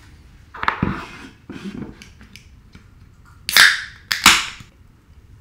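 Aluminium beer can of chilli Belgian ale being cracked open: sharp snaps with short hisses of escaping gas, the loudest two close together about three and a half seconds in.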